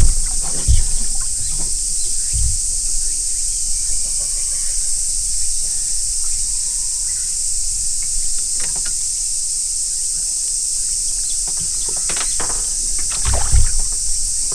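Steady high-pitched buzzing of insects throughout, with a few dull knocks from handling on the boat and a splash near the end as a caught bass is let back into the water.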